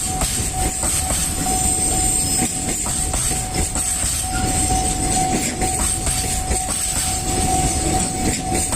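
Freight train of container wagons rolling past at a level crossing, wheels rumbling and clattering over the rail joints, with a steady ringing tone from the crossing's warning bell over it.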